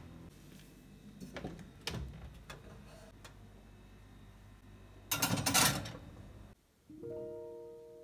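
Kitchen handling noises as a glass baking dish goes into an oven: a few clicks, then a loud rattling burst about five seconds in. After a moment of quiet, slow piano notes begin about seven seconds in.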